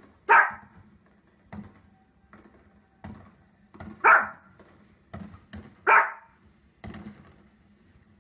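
Small fluffy dog barking: three sharp, loud single barks about two seconds apart, with fainter short thumps in between.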